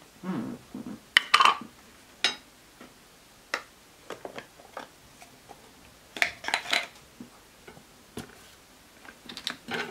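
Small hard objects clicking and knocking on a desktop as nail-art tools and a round stamping plate are picked up and set down. The sharpest knocks come about a second in, with another cluster around six seconds and a few more near the end.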